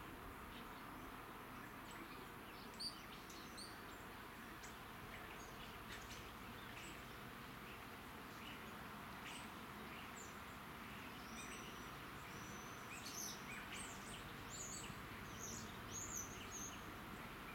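Faint steady outdoor background noise with small birds chirping in short high calls, scattered at first and more frequent in the last few seconds.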